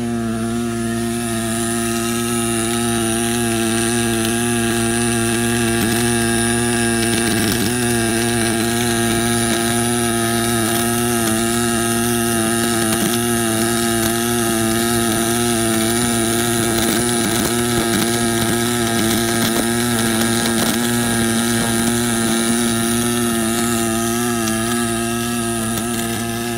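Automatic longitudinal seam butt welding machine running an arc weld along a steel sheet: a steady, even buzzing hum with a thin high whine above it.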